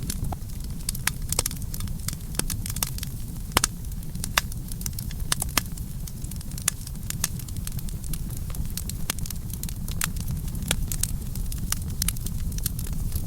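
Campfire burning: a steady low rumble with frequent, irregular sharp crackles and pops, several a second, some louder than others.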